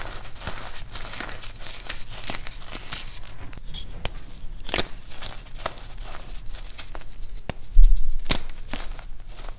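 Pressed gym chalk reforms crunching and crumbling in bare hands: a dense run of small dry cracks and snaps as the hardened chalk is squeezed and broken apart. A loud low thump comes about eight seconds in.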